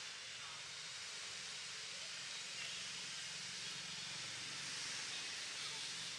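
Steady outdoor background hiss with a faint low hum underneath, no distinct call or knock standing out.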